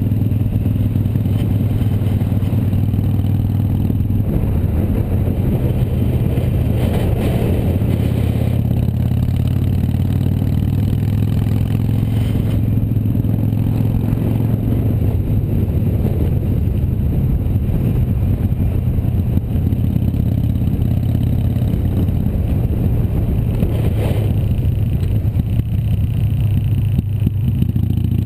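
Harley-Davidson motorcycle's V-twin engine running steadily at cruising speed, with wind rushing over the microphone.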